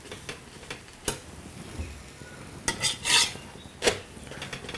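Metal spatula knocking and scraping on a flat iron tava while a puran poli is pressed and roasted, over a faint sizzle: one sharp knock about a second in, a cluster of scrapes near three seconds, and another knock just after.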